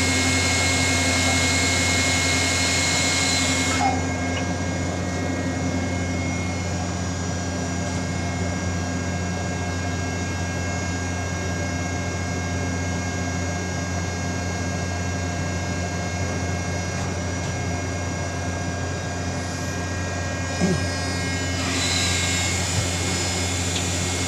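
Ship's deck crane machinery running with a steady hum, heard from the operator's position; a higher whine drops away about four seconds in and comes back near the end, with a single small knock shortly before.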